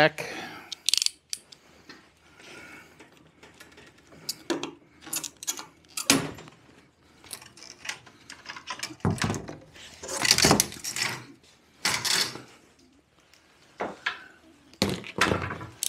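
Irregular handling noises of a plastic packing strap being cut and pulled off a cardboard-and-wood shipping crate: short clicks and snaps with rustling, busier about nine to twelve seconds in.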